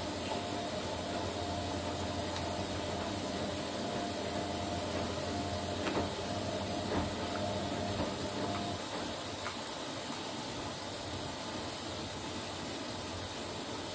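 Steady background hiss and low hum, with a few faint taps of chopsticks against a plate around the middle.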